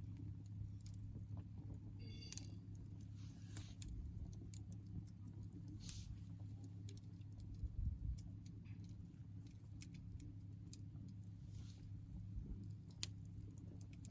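Small wood campfire crackling: irregular small pops and snaps, a few louder than the rest, over a steady low hum.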